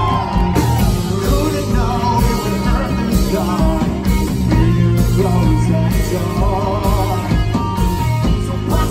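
Live rock band playing a song: a male lead vocal over electric guitar, bass and drums.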